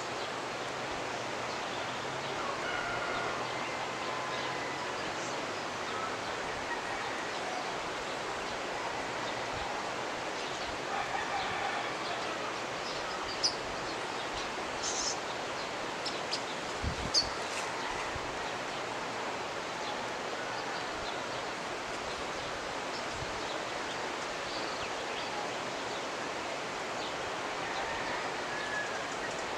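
Mountain river's rushing water, a steady even noise, with a few short, high bird chirps scattered over it.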